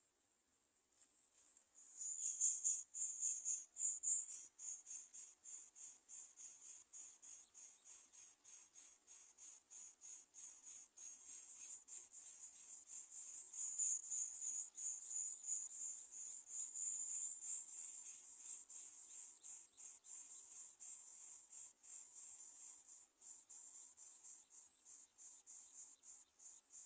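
An insect chirping: a high-pitched call in quick, regular pulses of about four a second, starting about two seconds in.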